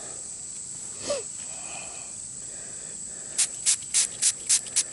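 Hand trigger spray bottle squirting water in about seven quick hissing spurts, about four a second, starting over halfway in, rinsing dirt off a freshly dug silver dime. A steady high cricket-like trill runs underneath.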